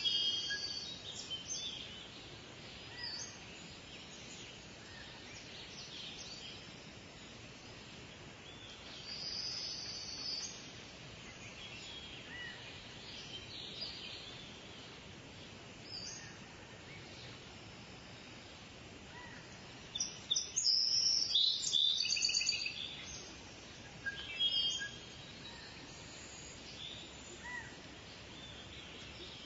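Small birds chirping and calling on and off over a steady faint outdoor hiss. A quick run of repeated chirps about two-thirds of the way through is the loudest part.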